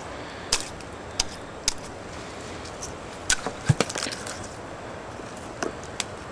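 A small hammer striking a sea urchin's shell on a stone slab to crack it open: sharp knocks, three spaced out in the first two seconds, a quick cluster of blows around the middle, and two more near the end.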